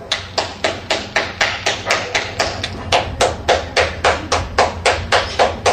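Rapid, steady knocking, about four sharp knocks a second, kept up without a break.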